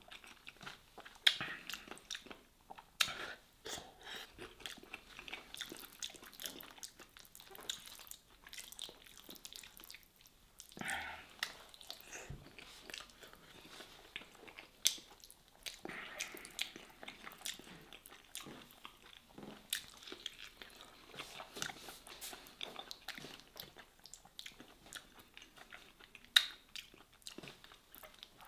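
A person chewing and smacking their lips while eating soft stuffed vegetables (Iraqi dolma), with wet mouth clicks throughout and a few sharper, louder smacks.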